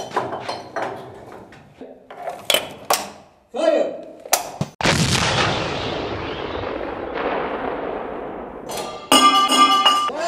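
Sharp metallic clanks and knocks as a crew works a fortress artillery gun in its bunker. About halfway through, a single cannon shot booms and rings out, fading over about four seconds. Brass music starts near the end.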